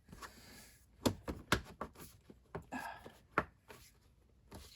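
Sharp clicks and knocks of a Lakewood Kool Operator fan's grille being handled and partially snapped onto the fan, with a brief scraping rustle between them.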